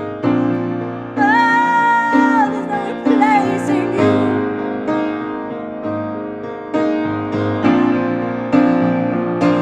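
Piano playing slow, repeated chords of a ballad, with a wordless sung note held for about a second early on and a brief wavering vocal line just after.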